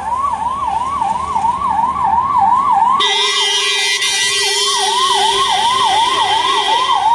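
Ambulance siren in a fast yelp, its pitch sweeping up and down about three times a second. About three seconds in, a second, steady tone with higher overtones joins it.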